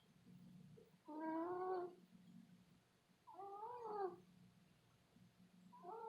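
A sleeping pet snoring: a squeaky, wavering pitched sound on each breath, three times about two and a half seconds apart, over a low steady rumble.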